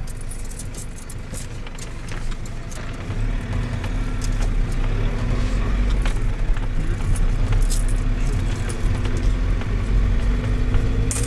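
Inside a minibus taxi on the move: its engine running and road noise, with many small clicks and rattles from the cabin. The engine gets louder about three seconds in as the bus picks up speed.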